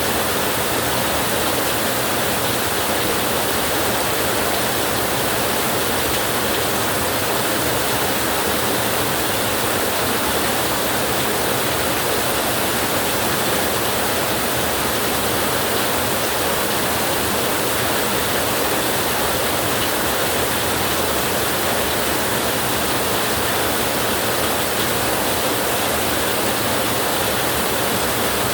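Heavy rain falling steadily on a tin roof, an even hiss that does not let up.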